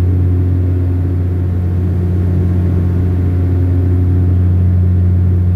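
Steady low drone of a De Havilland Canada Dash 8 turboprop's engines and propellers, heard inside the passenger cabin in flight: one deep hum with a few higher overtones, unchanging throughout.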